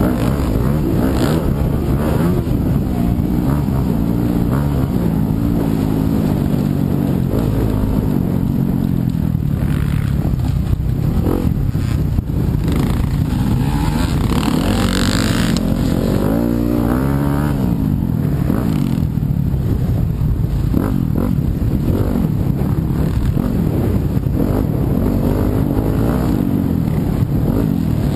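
Yamaha YZ250FX's single-cylinder four-stroke engine running hard as the bike is ridden, its pitch climbing and dropping again and again with throttle and gear changes. A brief rushing hiss comes about halfway through.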